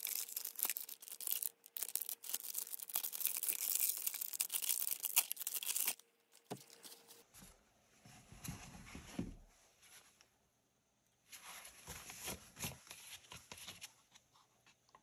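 A dry, soap-loaded sponge squeezed close to the microphone, giving a dense crackling crunch for about six seconds. After a short break come quieter, softer squeezing sounds in two spells.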